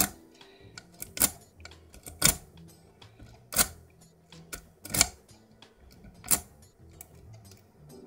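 A paperclip hook pick is being raked through the pin tumblers of a brass Euro cylinder lock held under light tension. It makes a sharp metallic click about every second and a bit, six in all, with fainter ticks in between.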